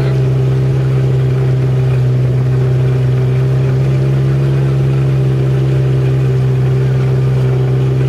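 Vehicle engine running steadily at one pitch under load as it climbs a steep vineyard row.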